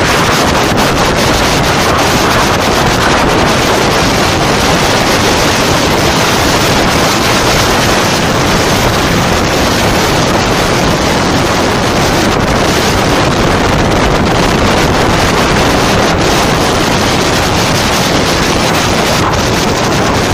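Wind rushing and buffeting over the microphone of a vehicle moving at road speed: a loud, steady rush with no distinct engine note.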